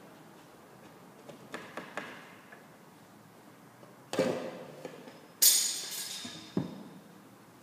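A putty knife scrapes lightly along the back of a mirror offcut, then knocks on the cutting table as the tools and small piece of mirror glass are handled. The loudest is a sharp clink with a short high ring from the glass, followed by a duller thud.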